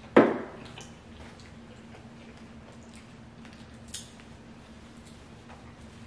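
Eating sounds from a seafood boil: shrimp being peeled by hand and eaten, with small wet clicks, one sharp thump just after the start and a smaller sharp click about four seconds in.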